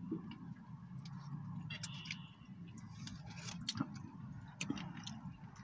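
A person drinking soda from a plastic bottle: scattered small clicks of swallowing and the plastic bottle, over a steady low hum.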